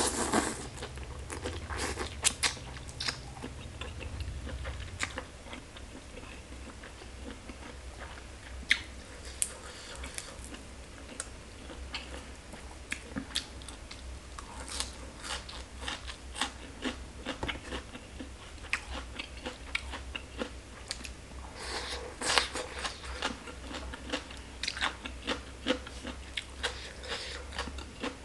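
Close-miked mouth sounds of eating green papaya salad and fresh herbs: a steady run of wet chewing with crisp crunches and crackles. It opens with a noisy slurp as papaya strands are sucked in, and another noisy burst comes about three quarters of the way through.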